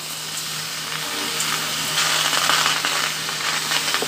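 Wet, freshly washed chopped radish leaves hissing and sizzling in a hot aluminium kadai just after being tipped in, a steady hiss that grows slightly louder about halfway through.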